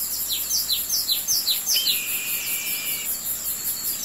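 Birds chirping: a run of quick falling chirps, about three a second, and one held whistle about a second long around two seconds in, over a steady high, fast-pulsing insect trill.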